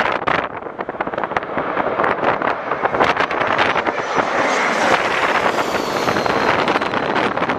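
Airbus A220-300's Pratt & Whitney PW1500G geared turbofans passing low overhead on landing approach: loud rushing jet noise with a high whine that falls in pitch as the aircraft goes over, about halfway through. Heavy wind buffeting on the microphone throughout.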